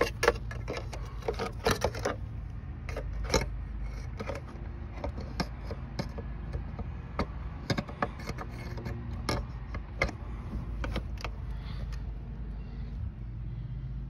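Irregular clicks and light rattles of a clamp meter and its test leads being handled and set down, over a steady low hum.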